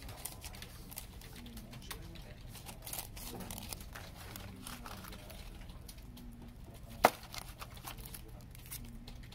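Card CD sleeves, paper inserts and a translucent inner sleeve rustling and crinkling as they are handled, with scattered small clicks and one sharp click about seven seconds in.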